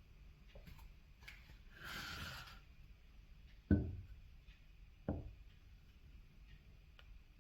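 Two hard knocks on wood, about a second and a half apart, each with a short low ring, preceded by a brief scraping rub and a few faint clicks.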